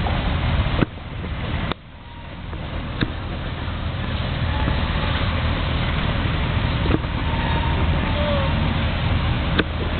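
Steady rumble of street traffic mixed with the sound of an NJ Transit train, an ALP-46 electric locomotive hauling Multilevel coaches, rolling along the raised station tracks. The noise dips sharply twice about a second in, and a few light clicks stand out.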